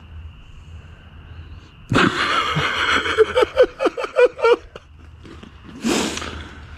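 A horse neighs: a loud, sudden cry that breaks into a fast, quavering run of falling pulses. A few seconds later there is a single short snort.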